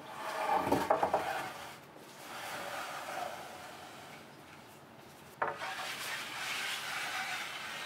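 Wooden boards set down on a wooden workbench and slid across it, twice. Each starts with a knock, right at the start and again about five and a half seconds in, followed by a couple of seconds of wood rubbing on wood.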